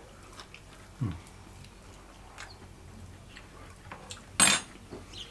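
Tasting at the table: a metal spoon clattering once against a dish a little after four seconds, with a short low "mm" about a second in and faint cutlery and mouth sounds between.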